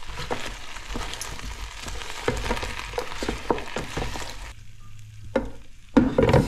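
Silicone-tipped tongs knocking and scraping against a non-stick air fryer basket as hot chicken wings are turned, over a sizzle of fat in the basket. The sizzle drops away about four and a half seconds in, and near the end there is one loud knock.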